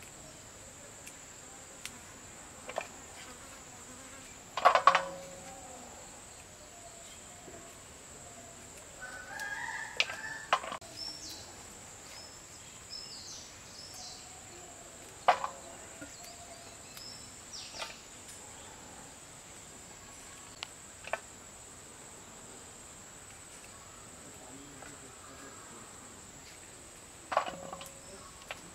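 Steady high-pitched drone of crickets or other insects, with a chicken clucking about ten seconds in and a few sharp knocks, the loudest about five seconds in, as vegetables and dishes are handled.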